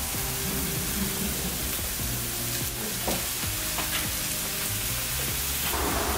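Meat sizzling in a grill pan on a portable tabletop gas burner as it is turned with tongs, a steady hiss with a couple of light clicks about three and four seconds in. Background music plays underneath.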